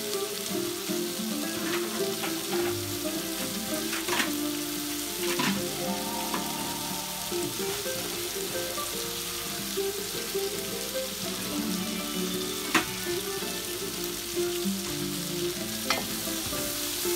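Chopped onion and parsnip sweating in a stainless steel pot, sizzling steadily with scattered pops and crackles, one sharper pop about two-thirds of the way through.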